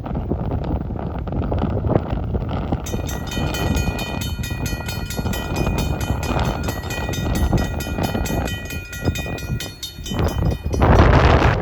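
Diesel freight train running past with a low rumble, while a locomotive horn sounds one long steady blast starting about three seconds in and cutting off about eleven seconds in. Near the end, a gust of wind hits the microphone.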